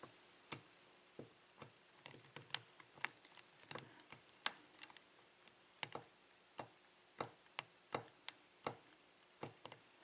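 Faint, irregular metallic clicks and ticks from a lock pick probing the pin stacks of a Master Lock No. 19 six-pin padlock, with a tension wrench in the keyway. The picker finds this pick too thick for the keyway.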